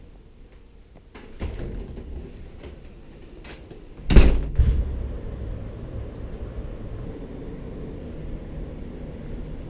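Jacket rustling as it is pulled on, then a front door opening and banging shut about four seconds in: a loud knock with a second, smaller one just after. Steady low background noise follows.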